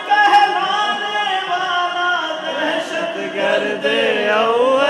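Unaccompanied man's voice singing a line of an Urdu manqabat, a devotional poem, in long held notes that bend up and down, with a rising glide near the end.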